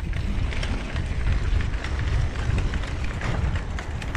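Steady low wind rumble on the microphone, with scattered light rattles and knocks from an old bicycle being ridden.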